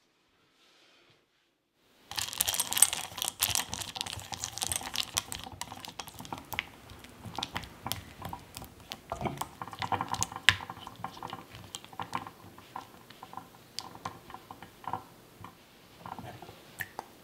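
A spatula stirs dark chocolate pieces in a glass bowl over a pan of hot water. It starts about two seconds in with quick, dense clicking and scraping of the hard pieces against the glass. The clicks thin out as the chocolate melts.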